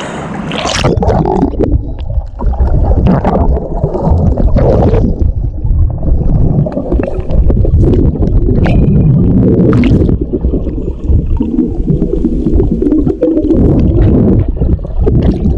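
Muffled underwater sound of an action camera in the sea as a snorkeler dives toward the bottom: a loud, steady low rumble of moving water with gurgling bubbles and scattered sharp clicks.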